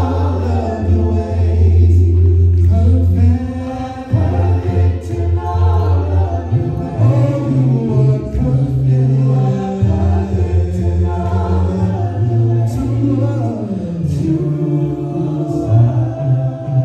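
Gospel worship team singing together in harmony on long held notes, the chord changing every second or two over a low sustained bass note.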